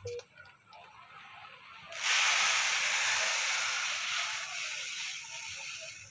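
Milk poured in a thick stream from a plastic pouch into a plastic bucket: a loud, steady rushing hiss that starts suddenly about two seconds in and slowly tapers off.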